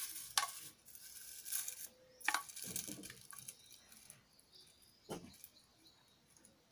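Paper towel rustling and crinkling as it is handled, then a few sharp clicks of a metal spoon against a granite-coated pan as herb-infused oil is scraped out of it.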